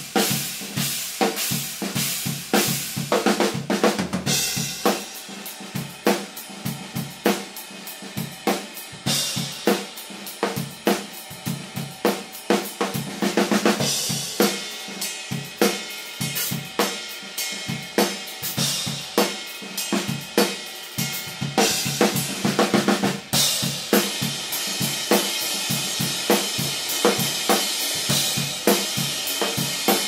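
Drum kit played fast and busy: rapid snare and bass drum strokes under Saluda Nemesis Hybrid and Mist-X cymbals (crashes, china, hi-hats, ride). Bright crash washes swell up several times, the longest from a little past the middle onward.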